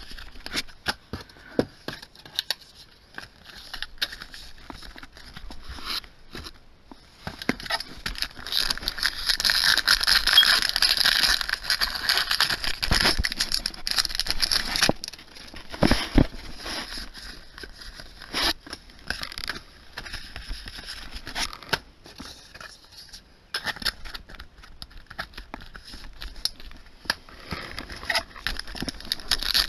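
Foil booster-pack wrappers crinkling and tearing as packs are opened, with trading cards being handled and slid against each other in quick rustles and clicks. The crinkling is loudest and densest from about 8 to 15 seconds in, and picks up again near the end.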